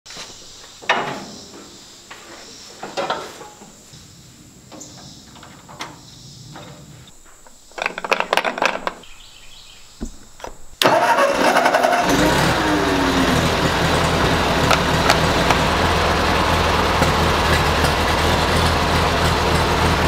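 Old Ford tractor's four-cylinder engine cranked on its starter button in short tries, catching about eleven seconds in and then running loud and steady.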